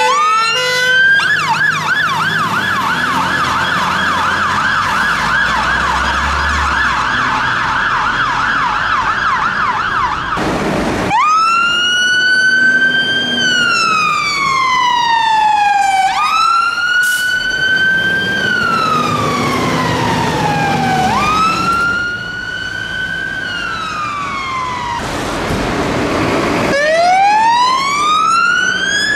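UK fire engine sirens. A Volvo FL fire engine's siren runs in a fast yelp until about ten seconds in. After a cut, a Scania fire engine's siren sounds in a slow wail, each cycle rising quickly and falling over about five seconds.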